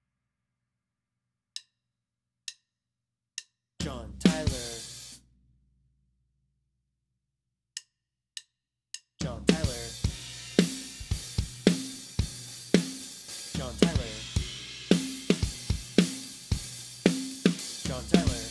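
Acoustic drum kit: three sharp clicks count in, then a short setup-and-push fill lands on a crash cymbal with the bass drum and rings out. After a pause, three quicker clicks count in again and the drummer plays a steady groove with cymbals ringing, the same fill and crash accents coming round repeatedly.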